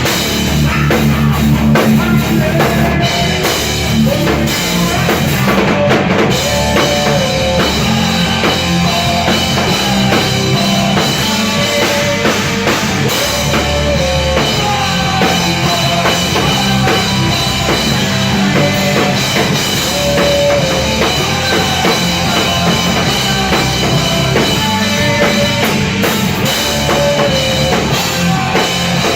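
Rock band playing live: a drum kit with kick drum and guitar, loud and continuous.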